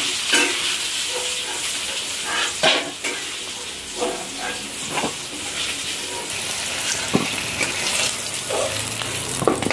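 Potatoes sizzling in hot oil in a metal kadai, with a steel spatula scraping and clinking against the pan several times as the fried pieces are lifted out.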